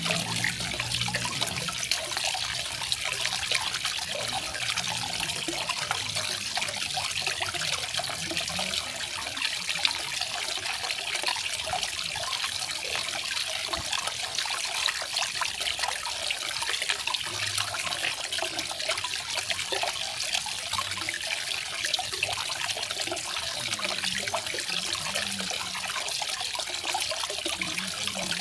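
Small garden waterfall splashing steadily, a continuous bright hiss of falling water with faint low gurgling beneath.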